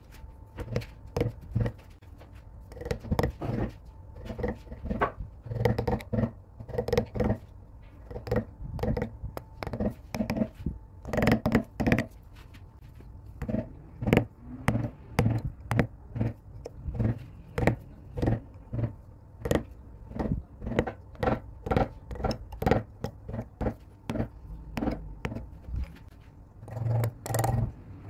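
Hand-pushed carving gouge cutting into wood, short scraping cuts with light knocks coming in quick, irregular succession.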